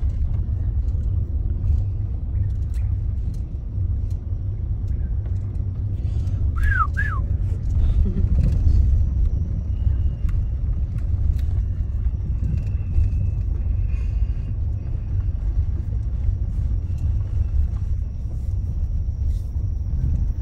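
Steady low road noise of a car driving over an old brick road, heard from inside the cabin, with scattered light clicks and rattles. About a third of the way in, two quick falling chirps sound.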